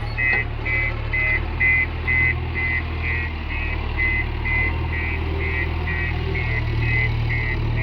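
Diesel engine of a backhoe loader running steadily, with an electronic reversing alarm beeping about twice a second.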